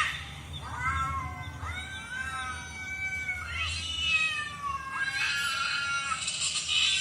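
Cats meowing and yowling: a run of drawn-out calls that rise and fall in pitch, overlapping one another, turning into a harsher, raspier yowl about five seconds in.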